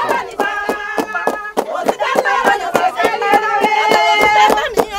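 A group of women singing together in long held notes over a fast, steady beat of handclaps.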